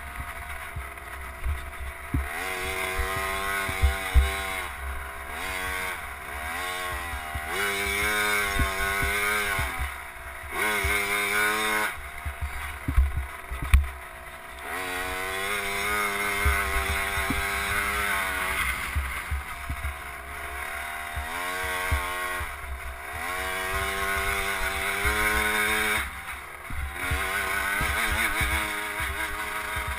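KTM 50 SX's 49cc single-cylinder two-stroke engine, heard onboard while riding a motocross track: it revs up on the straights and falls off as the throttle is closed for corners, again and again every few seconds. Low buffeting and knocks on the microphone underneath.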